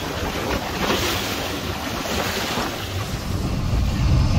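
Water rushing and splashing along the hull of a fishing boat under way, with wind buffeting the microphone and a low rumble underneath.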